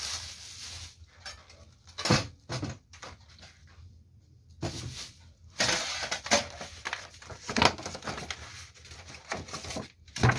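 Unpacking noise from a metal oven baking tray and wire grill rack being lifted and handled against cardboard packaging: irregular knocks, scrapes and rustles, loudest about two seconds in and again between five and eight seconds in.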